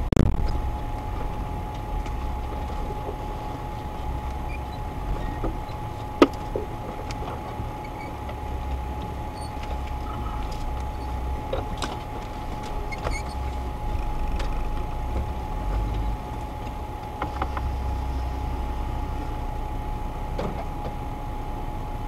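Off-road vehicle's engine running at idle: a steady low rumble that swells now and then as it moves off along the track, with a constant thin whine over it. There is a single sharp click about six seconds in.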